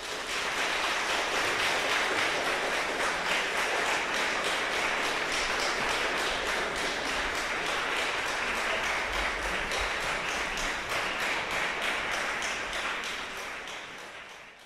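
Audience applauding. The clapping is steady, thins out over the last couple of seconds, and then cuts off.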